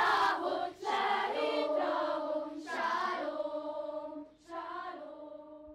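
A choir singing slow, held notes, growing steadily quieter and dying away on a last note near the end.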